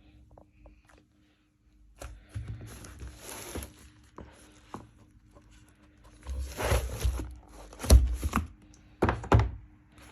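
Unboxing handling noise: packaging rustling and scraping in two stretches, with sharp knocks, the loudest about eight seconds in and two more about a second later.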